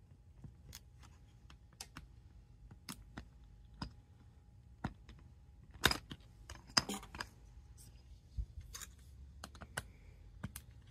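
Light clicks and taps of a small screwdriver and fingers on the plastic case of a VTech InnoTab 2 tablet, scattered and irregular. Two sharper knocks come about six and seven seconds in.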